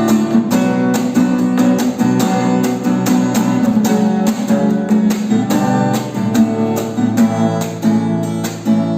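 Acoustic guitar strummed in a steady rhythm with no singing: the instrumental break of a sertanejo ballad.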